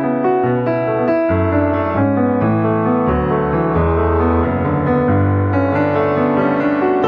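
Background instrumental music led by piano, with notes changing every half second or so over low bass notes.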